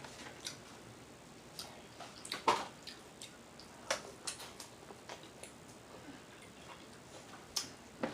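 Eating sounds: scattered wet mouth smacks and chewing clicks, with one louder smack about two and a half seconds in.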